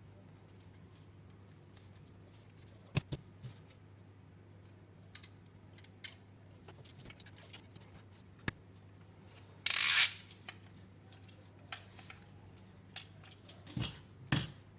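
Scattered small clicks and taps of parts being handled, with one brief louder scrape about ten seconds in and a few more knocks near the end, over a faint steady low hum.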